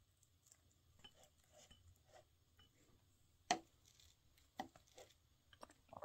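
Wooden chopsticks tapping and clicking on a ceramic plate while picking up a piece of fried tofu pocket sushi. There are a handful of light clicks, with one sharper click about halfway through.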